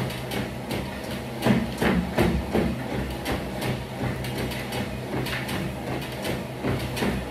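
Compact electric treadmill running with a steady motor hum, and jogging footsteps striking the belt in a steady rhythm of about two to three a second, strongest about one and a half to two and a half seconds in.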